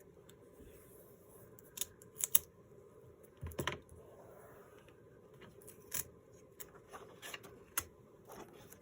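Paper tape and paper pages being handled while pages are taped together: a scattered series of short, crisp clicks and crinkles, the loudest about two and a half seconds in.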